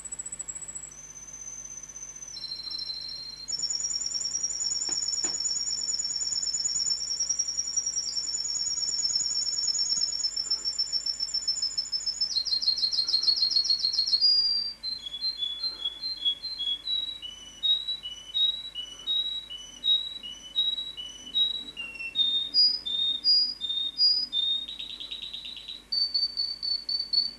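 Domestic canary singing one long song made of a chain of trills. It opens with fast high rolling trills, then from about halfway shifts to slower two-note whistled phrases repeated about twice a second, and breaks off suddenly near the end.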